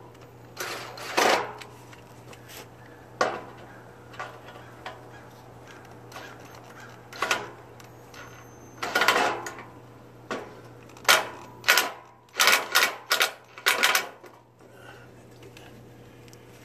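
Irregular short clacks and rattles of plastic and metal parts being handled and fastened as a headlight is fitted into a riding mower's plastic hood. The strikes are bunched most thickly a few seconds before the end.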